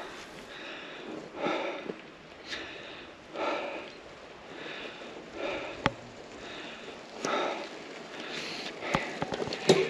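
A person breathing hard, heavy breaths roughly one a second, from the effort of riding an e-bike up a very steep climb. A sharp click comes about six seconds in.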